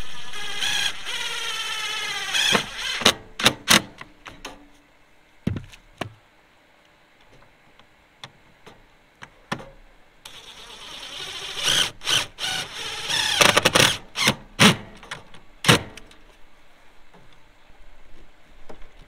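Cordless drill driving screws into the sheet-metal housing of a rooftop RV air conditioner, its motor whine rising in pitch, twice, with sharp clicks and knocks of the tool and parts being handled between and after.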